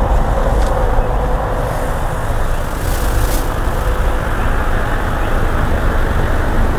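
Steady, loud rushing background noise with a low rumble and a faint steady tone in it, unchanging throughout, with no single event standing out.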